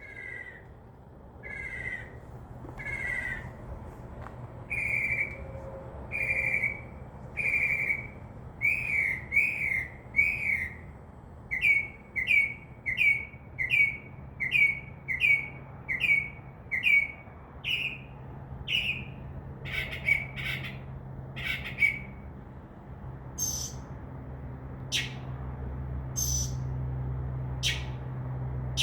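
Northern mockingbird singing: a long run of short repeated chirped notes, about one a second at first and quicker in the middle, then a change to sharper, higher notes near the end.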